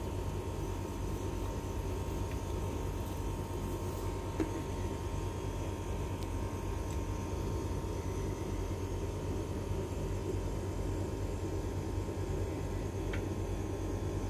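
Steady mechanical hum with a hiss, like a running fan or motor, with a couple of faint clicks.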